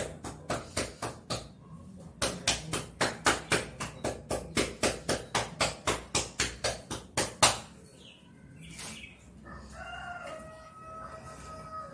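Cupped-hand clapping on a patient's back in chest physiotherapy: rapid, even pats about four to five a second, with a brief break, stopping about seven and a half seconds in. The percussion serves to loosen sputum built up in the upper lobe of the lungs. Near the end a rooster crows in the background.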